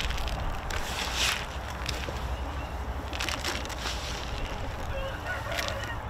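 Chickens calling with short, scattered squawks over a steady low rumble, with loud rustling noise now and then.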